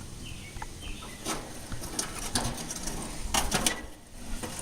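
Old, worn-out grill grates clanking as they are handled and set down, a few short knocks with the loudest cluster a little past three seconds. A bird chirps briefly near the start.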